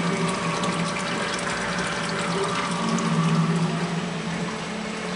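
Aquarium pump and water circulation running: a steady rush of moving water with a low hum and many faint small ticks.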